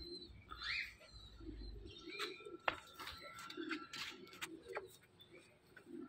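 Domestic pigeons cooing softly again and again, with faint short chirps of other birds mixed in.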